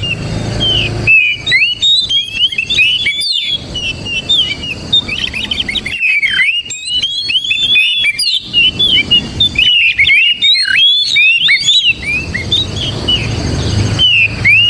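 Oriental magpie-robin singing a long, nearly unbroken run of quick, varied whistles and chirps, over a low background hum.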